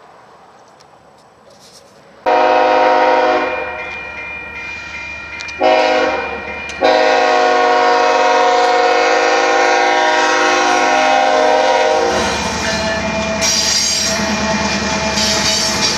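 BNSF diesel locomotive's air horn sounding three blasts, two short ones and then a long one of about five seconds. The locomotives' engines and steel wheels on the rails rumble steadily as the train comes up.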